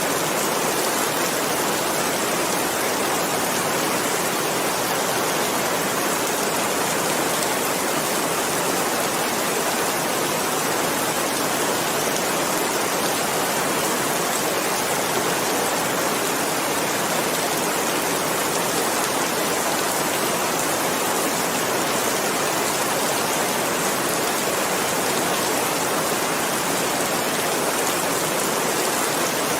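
Steady heavy rain, an even hiss with no distinct drops standing out.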